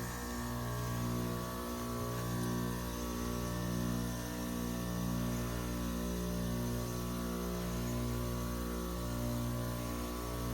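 Two Trane XR14 heat pump outdoor units humming steadily during a defrost cycle, a low droning hum that wavers in a slow, regular rhythm about every second and a half.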